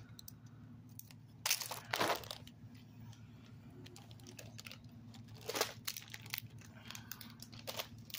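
Plastic snack and candy wrappers crinkling in a few short rustles, over a faint steady low hum.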